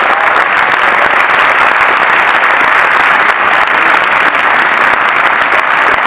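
A cinema audience applauding steadily: dense, even clapping from many hands.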